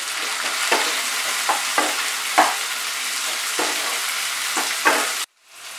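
Chopped tomato and onion sizzling in hot mustard oil in a non-stick kadai, with a spatula knocking and scraping against the pan every half second to second as it is stirred. The sound cuts off suddenly near the end.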